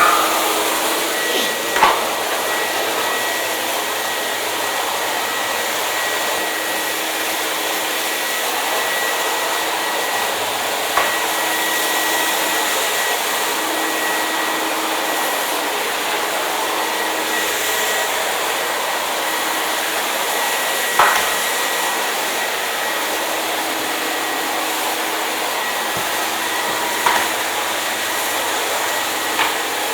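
Hair dryer running steadily: a continuous rush of fan and airflow with a faint high whine. A few brief clicks break in now and then, the sharpest at the very start.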